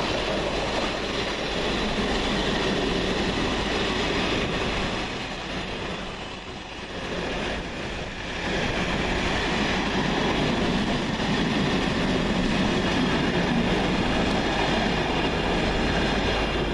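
Train running through the station, a steady rumble of steel wheels on the rails that dips briefly about halfway and fades away at the end.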